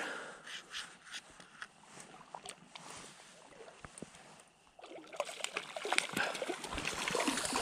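Close splashing and sloshing of river water, sparse at first and busier from about five seconds in.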